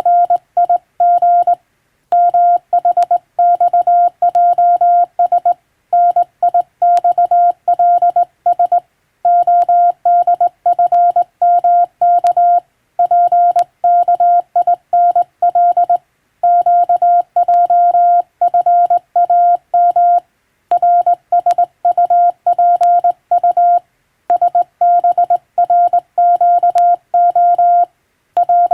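Morse code sent on a telegraph key, heard as one steady beep tone switched on and off in dots and dashes, with longer pauses between words: English-language telegram sending practice.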